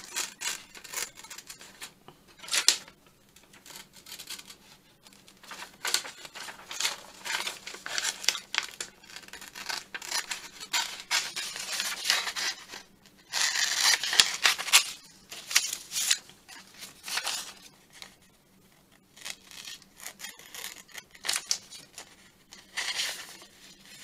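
Scissors cutting through a glossy magazine page in many short, irregular snips, with the paper crackling as it is turned in the hand.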